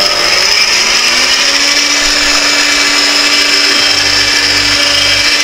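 Electric hand mixer running on high speed, its beaters whipping eggs and sugar until fluffy. The motor starts as the sound begins, its pitch climbing over the first second or so as it spins up, then runs steadily with a high whine.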